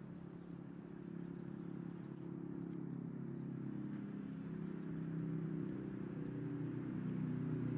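A motor vehicle's engine running steadily with a low hum, growing slowly louder.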